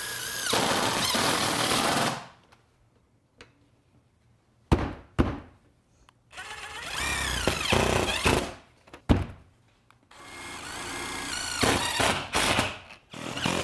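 Cordless impact driver running pan head screws through metal transition trim on a standing seam roof, in three runs of a couple of seconds each, with a few sharp clicks between them.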